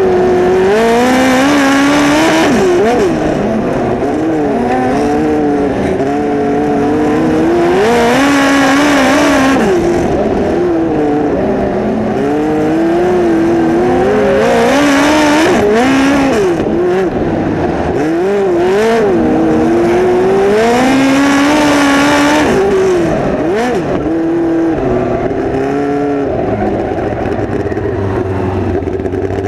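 Midget race car's four-cylinder engine heard from the cockpit at racing speed, its pitch climbing on each straight and dropping as the throttle comes off for the turns, about every six to seven seconds. Near the end it settles to a lower, steadier note.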